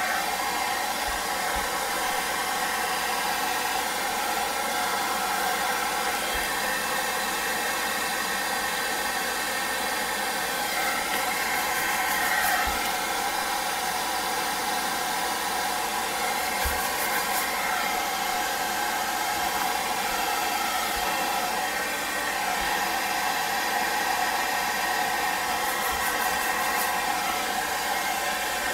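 Hairdryer running steadily, blowing air onto a diamond-painting canvas to heat it and ease out creases.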